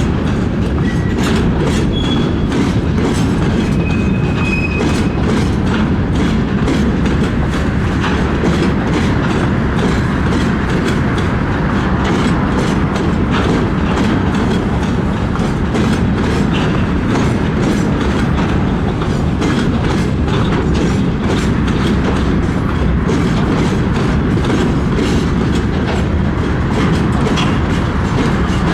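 Railway wagons rolling past at speed, their wheels clattering over the rail joints in a continuous run of clicks over a steady rolling noise.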